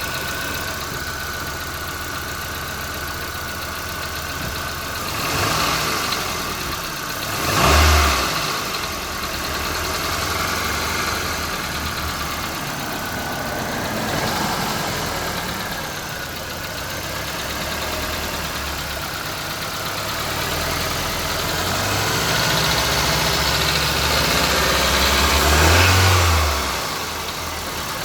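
Nissan CR14DE 1.4-litre four-cylinder engine idling with a knock, revved briefly twice about a quarter of the way in and held at higher revs for several seconds near the end.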